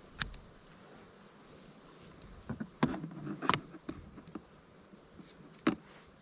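A few sharp clicks and knocks: one just after the start, a cluster of them about three seconds in, and a last one near the end.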